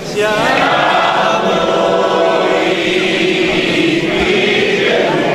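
A large congregation singing a hymn together, many voices in unison with long held notes.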